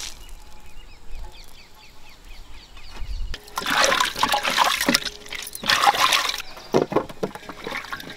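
Vegetables being washed by hand in water in a large metal pot: water sloshing and splashing loudly for about three seconds in the middle, followed by a few short knocks.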